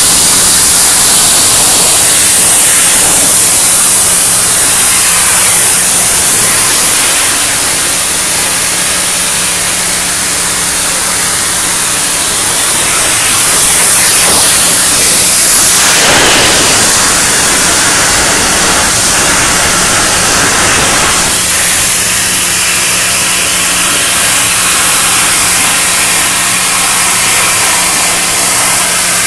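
Flame-cutting torches hissing steadily as they burn through wet steel plate, under a steady low machine hum. The hiss grows denser for several seconds about halfway through.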